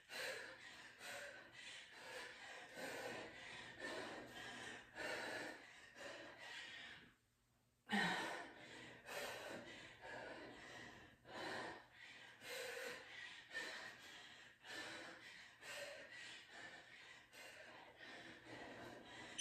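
A woman breathing hard in short, rhythmic breaths, more than one a second, from the exertion of kettlebell swings. The breaths pause briefly about seven seconds in.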